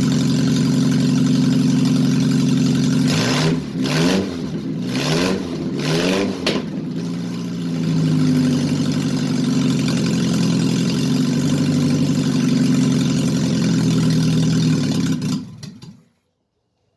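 Replacement engine in a Mazda Rustler running at a steady idle, revved up and down several times a few seconds in, then settling back to steady running before fading out near the end.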